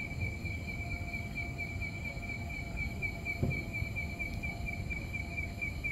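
A cricket chirring steadily in an even, fast pulse, over a low rumble of background noise. A soft dull thump comes about three and a half seconds in.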